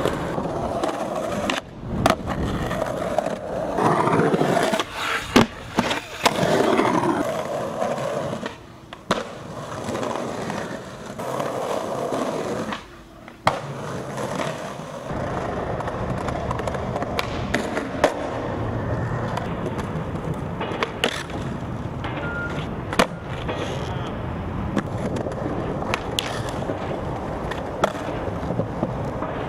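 Skateboard wheels rolling over concrete, broken every few seconds by sharp clacks of the board popping and landing.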